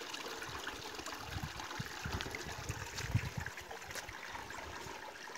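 Steady rush and trickle of a river flowing over rocks, with a few low rumbles in the middle.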